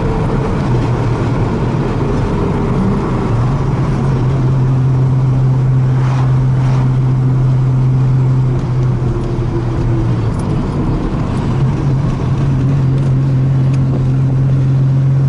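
Turbocharged car engine running under way on the road. Its note rises about three seconds in, holds, drops about ten seconds in and climbs again from about twelve seconds.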